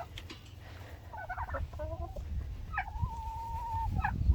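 Turkeys and chickens calling: a few short clucks about a second in, then one long, steady, even-pitched call lasting about a second, and a low rumble near the end.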